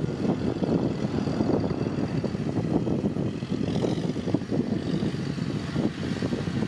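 Kubota farm tractor's diesel engine running steadily under load as the tractor pushes soil with its front blade.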